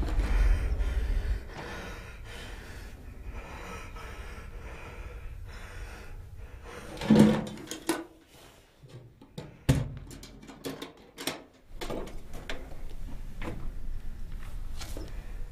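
Quiet handling sounds of a man working with small objects on a rocky floor: a short loud sound about seven seconds in, then a run of small clicks and knocks.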